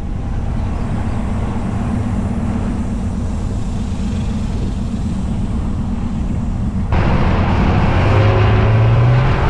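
Pickup truck driving along a road while towing a car: steady engine and tyre rumble, heard with the microphone out of the window. About seven seconds in the sound jumps louder with wind rushing over the microphone, and near the end an engine note rises in pitch.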